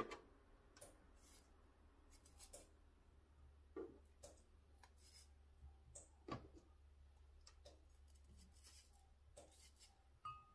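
Kitchen knife cutting pieces off an aloe vera leaf: faint, irregular cuts, about one a second.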